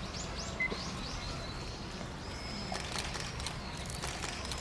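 Steady low background noise with a few faint, high bird chirps.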